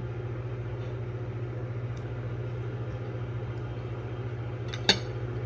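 A steady low mechanical hum, such as a kitchen appliance running, with one sharp clink of a utensil on a dish near the end.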